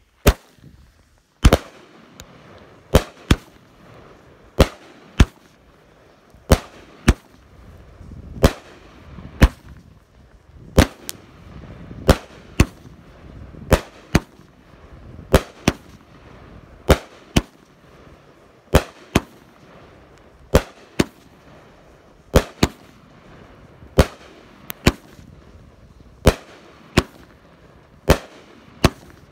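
A consumer firework cake of 25 willow shells with a 1¼-inch bore firing in sequence. Sharp bangs come about once a second, often in close pairs, starting just after the lit fuse burns down.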